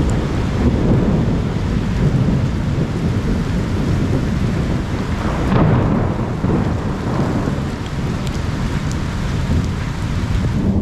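Heavy monsoon rain with thunder rumbling continuously, swelling a little past the middle.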